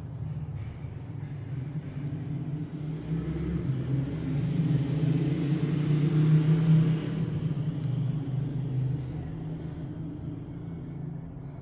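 Motor vehicle engine passing by: a low, steady hum that grows louder to a peak about two-thirds of the way through, then fades away.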